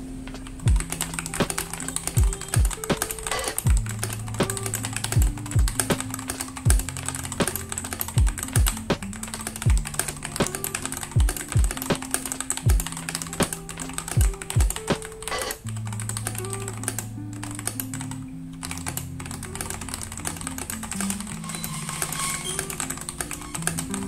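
Typing on a Royal Kludge RK84 mechanical keyboard with Feker Panda tactile switches and XDA-profile keycaps: a steady run of keystrokes. Lofi background music plays underneath, its drumbeat dropping out about two-thirds of the way through.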